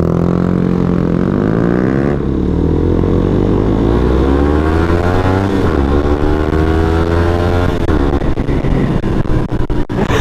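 Suzuki GSX-R125 motorcycle engine accelerating hard from a standstill. The engine note rises through each gear and drops sharply at upshifts about two, six and eight seconds in.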